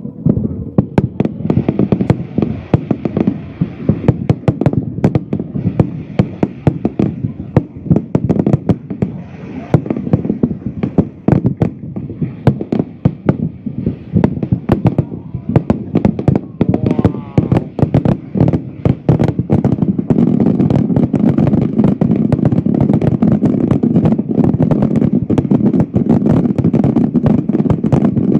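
Fireworks display: sharp bangs of bursting shells in quick succession throughout, thickening into a dense, near-continuous barrage for the last third.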